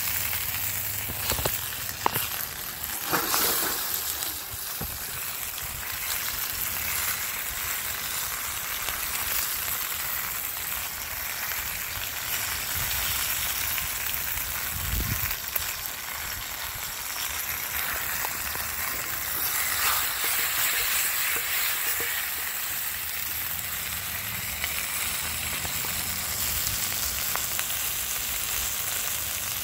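Chicken drumsticks sizzling in hot grapeseed oil in a wide steel pan, a steady frying hiss with a few sharp pops in the first few seconds.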